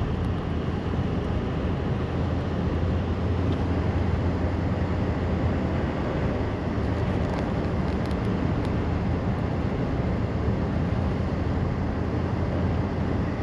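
Steady road noise inside a pickup truck's cab while driving on a slushy, snow-covered road: tyres hissing through slush over a low, even engine and drivetrain hum.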